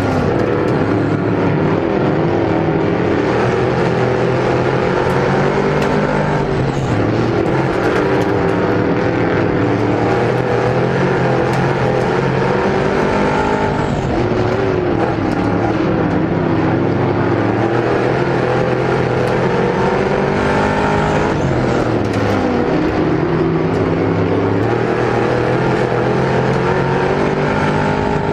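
Dirt-track Sportsman modified's V8 engine heard from inside the open cockpit under racing load, its revs rising and falling repeatedly as the car laps the oval.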